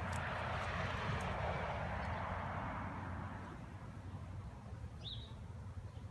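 Outdoor ambience: a soft rushing noise that fades over the first three seconds over a low steady hum, with a single short bird chirp about five seconds in.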